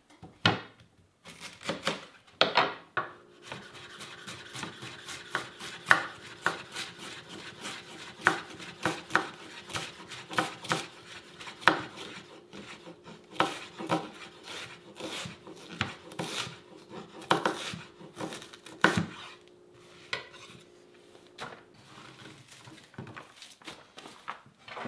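Kitchen knife shredding cabbage on a wooden cutting board: quick, irregular knocks of the blade striking the board through the leaves.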